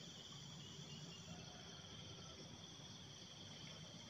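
Faint, steady chirring of insects in the open air, with no other distinct sound.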